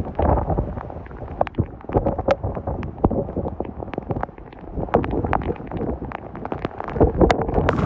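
Hurricane-force wind buffeting the microphone in uneven, rumbling gusts, with many sharp clicks and pops scattered through it.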